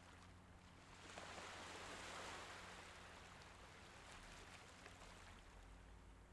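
A faint, small sea wave washing in on the shore about a second in, swelling to a soft rush and then slowly drawing back, with a few light ticks.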